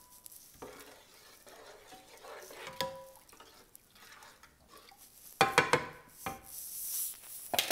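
A spoon stirring soaked wheat and lentils in water in a pan, with a few loud, sharp clinks of the utensil against the pan about five and a half seconds in and again near the end.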